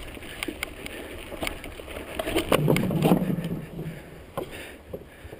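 Mountain bike rolling over a rocky dirt trail, heard through a handlebar-mounted camera: tyre noise with frequent clicks and knocks from the bike rattling over the bumps. About two and a half seconds in there is a brief low drone lasting about a second and a half.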